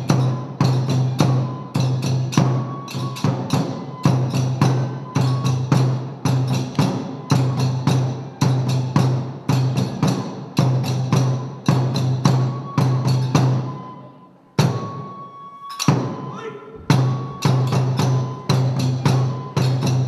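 Kagura music: a taiko drum and hand cymbals struck in a fast, driving repeated pattern, with short held notes of a bamboo flute over it. The drumming breaks off for about two seconds near three-quarters of the way through, while a flute note holds, then starts again.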